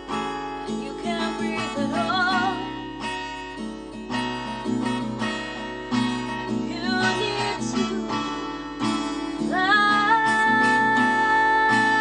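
Acoustic guitar playing while a woman sings a song. About two seconds in she sings a wavering phrase, and from about nine and a half seconds she holds a long, loud high note that wavers in pitch.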